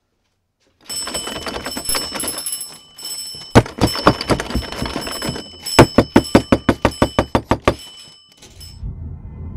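A mechanical bell ringing, its hammer clattering rapidly on the metal. It starts suddenly about a second in, rises to a run of about a dozen loud strikes near the end, and stops. A low rumble comes in as it stops.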